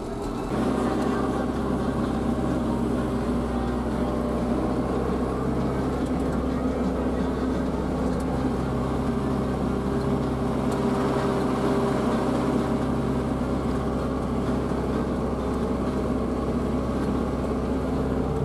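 Renault Ceres 95X tractor's diesel engine running steadily while driving, heard from inside the cab.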